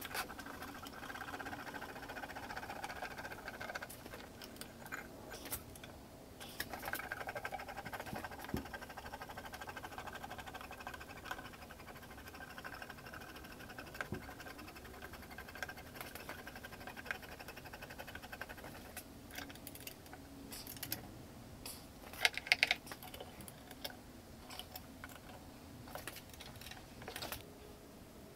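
Scattered small clicks, taps and scrapes of metal parts and hex keys being handled while a desktop CNC's aluminium frame is assembled by hand, with a quick run of sharper clicks a little past two-thirds through. A faint steady hum runs underneath.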